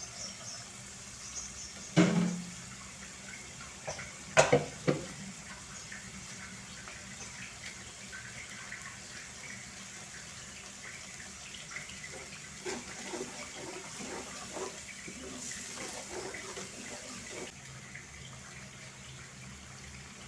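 Watery chili sambal simmering in a metal wok over a gas flame: a steady hiss with small pops and bubbling. A few sharp metal clinks come about two and four to five seconds in.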